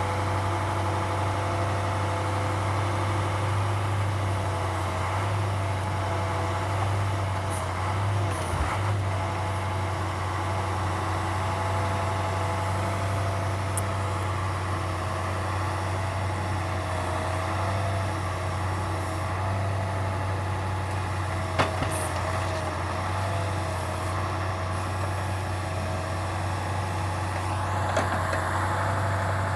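Truck engine running steadily to drive an OMTL 70-02 hydraulic timber loader crane, with a whine that wavers in pitch as the crane is worked. A few sharp knocks, two of them close together about two-thirds of the way in and more at the very end, as logs are handled.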